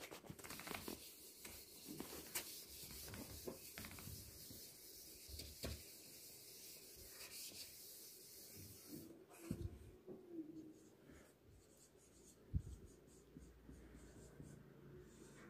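Faint rubbing of a duster wiping a whiteboard clean, then a marker writing on the board in short scratchy strokes. One sharp knock comes a little after the writing starts.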